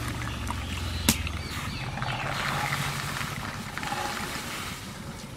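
Soaked dried yellow peas poured into water in an aluminium pan, splashing steadily, with one sharp knock about a second in.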